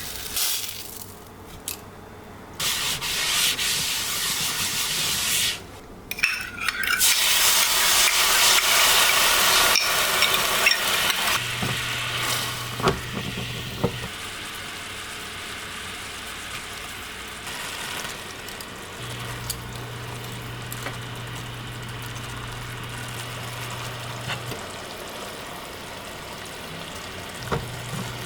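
Food sizzling in a frying pan while it is stirred, with the hiss loudest in the first third and settling to a steady lower sizzle, plus a few brief scrapes.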